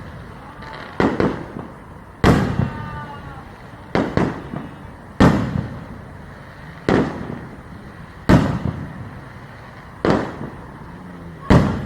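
Aerial fireworks shells bursting in the sky: about eight loud booms, one every second and a half or so, each trailing off before the next.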